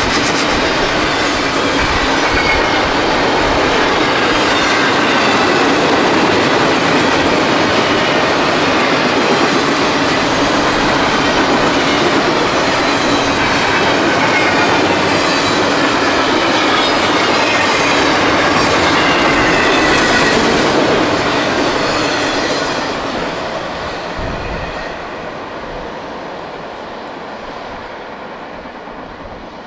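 Long CSX intermodal freight train's empty well cars and flatcars rolling past, wheels clattering over rail joints with some faint wheel squeal. The noise fades from about three-quarters of the way through as the tail end passes and moves away.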